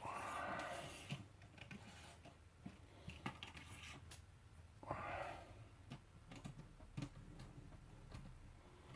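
Faint, scattered light clicks and taps of small plastic and metal parts being handled as a model train locomotive is set on a test track, with two short hissing rustles near the start and about halfway through.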